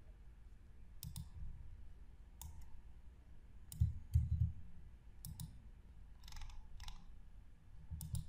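Computer mouse clicking several times at irregular intervals, with a few dull thumps, the loudest about four seconds in.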